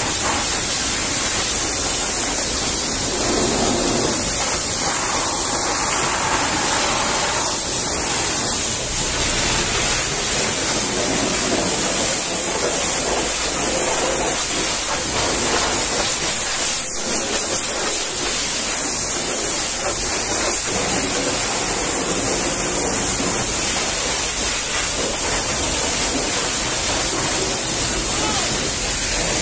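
High-pressure washer jet spraying water onto a semi truck's fuel tank, rear wheel and mudguard: a steady hiss of spray.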